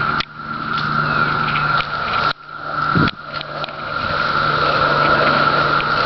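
Chorus of 17-year periodical cicadas: a steady, loud, high drone of many males singing together. It drops out sharply and briefly twice, just after the start and a little past two seconds, then swells back. There is a short low thump about three seconds in.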